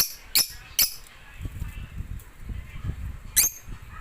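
A bird giving short, sharp chirps: three in quick succession, then another near the end, with a low rumble in between.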